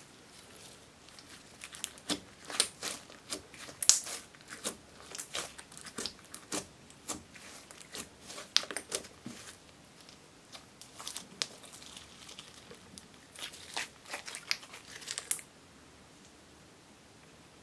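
Silver slime being kneaded and pressed by hand, giving an irregular string of sharp crackling pops and clicks as air pockets in it burst. The popping starts about two seconds in and stops a couple of seconds before the end.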